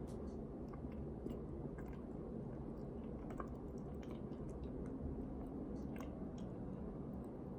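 A person chewing close to the microphone: scattered faint clicks over a steady low hum.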